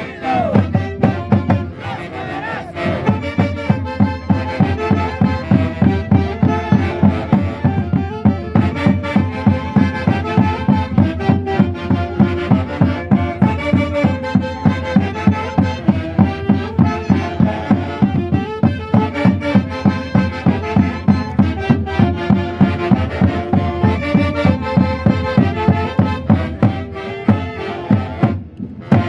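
A band playing Andean festival music from central Peru, with melody instruments over a steady, driving beat, about three beats a second.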